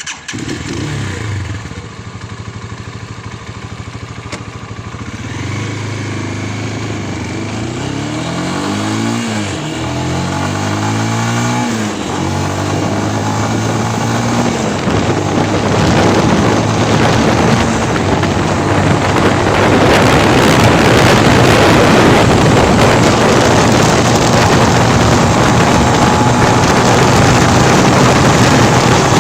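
Spark SP200R-28 200 cc motorcycle accelerating hard, its engine pitch climbing and dropping several times as it shifts up through the gears. Then wind rushing over the microphone grows steadily louder and drowns the engine as the bike builds toward top speed.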